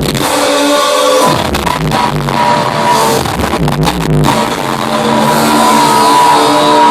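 Loud live electronic dance music over a concert sound system, with heavy bass hits for the first few seconds giving way to long held synth chords.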